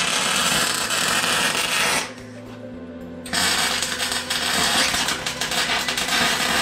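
MIG welding arc crackling and spitting as a nut is tack-welded onto its bolt to lock it. It stops about two seconds in and starts again a second later, over a low steady hum.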